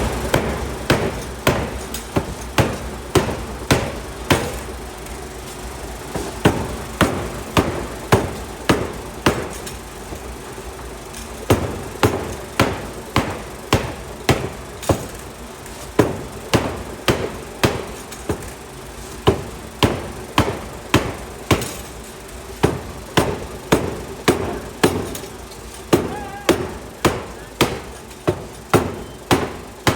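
Steady blows of a 750 kg pneumatic forging hammer on hot steel, about two sharp strikes a second in runs with short pauses, over a steady machine hum.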